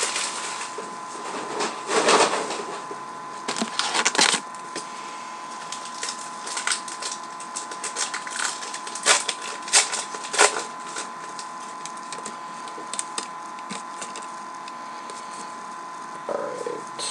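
Packs of baseball trading cards being opened and the cards handled: irregular crinkling, rustling and sharp flicking clicks, loudest in a few bursts, over a faint steady high-pitched hum.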